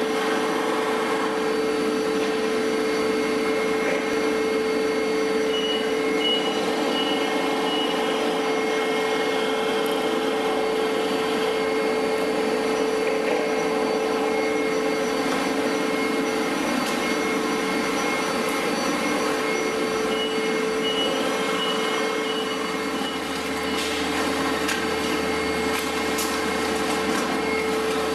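A veneer core builder and the plywood-mill machinery around it running with a steady mechanical drone and a constant hum. Late on, a deeper hum joins in and a few light clicks are heard.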